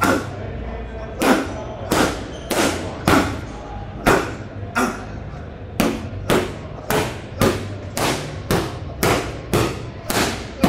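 Gloved punches smacking into focus mitts in combinations: about seventeen sharp smacks, irregular at first, then a steady run of about two a second through the second half.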